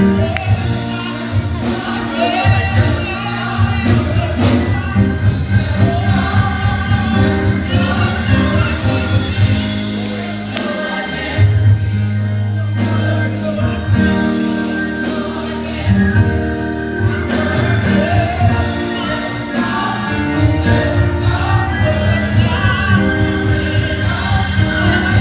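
Gospel choir singing with music accompaniment over a steady beat and a strong bass line.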